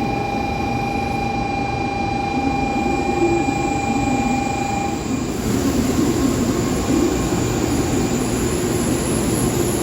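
Shinkansen train moving alongside the platform, with a steady rumble and running noise. Two steady tones stop about five seconds in, giving way to a louder rushing sound with a high whine.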